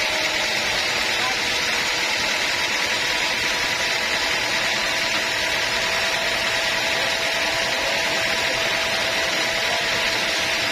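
Sawmill saw running steadily through a teak log: a continuous hiss with a faint, steady whine underneath.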